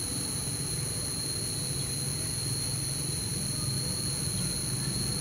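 Steady outdoor background: a low hum under an even hiss, with constant thin high-pitched whines that do not change.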